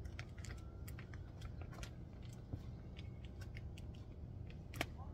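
Scattered light clicks and crinkles of a brake-pad package and its plastic wrapping being pried open and handled, over a low steady hum.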